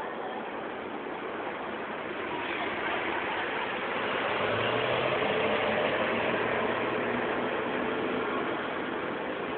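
Street traffic with a motor vehicle's engine running close by, its low steady hum growing a little louder about four seconds in.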